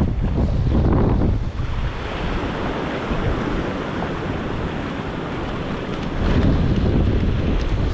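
Wind buffeting the microphone over small waves washing up a sandy beach. It swells near the start and again near the end.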